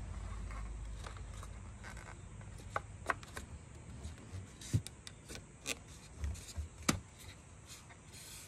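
Wooden prop stick being fitted into a metal window-frame track: scattered sharp clicks and knocks of wood against the frame, with short scrapes and rubbing, the loudest knocks between about three and seven seconds in.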